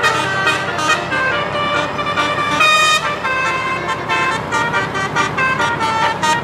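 Indonesian bus 'telolet' horn, a set of tuned horns playing a quick tune of short stepped notes, with one note held a little longer partway through.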